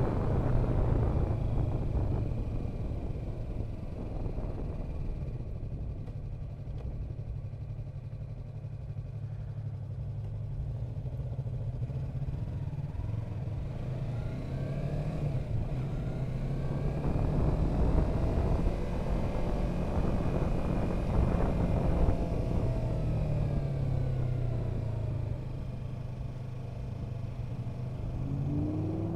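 Yamaha R3's parallel-twin engine running as the bike is ridden, its pitch rising and falling with the throttle, under wind noise on the helmet microphone that is heaviest in the first seconds.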